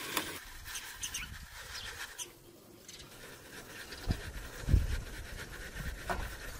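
Flour being rubbed and shaken through a fine mesh sieve by hand, a scratchy swishing hiss. Two dull low thumps come a little past the middle, the second the loudest.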